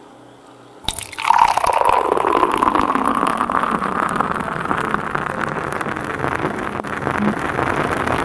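A canned drink poured from an aluminium can into a stainless-steel mug, a steady gurgling pour. A sharp click about a second in marks its start.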